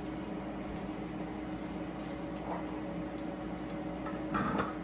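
A steady low hum, with a faint brief sound about halfway through and a short louder one near the end.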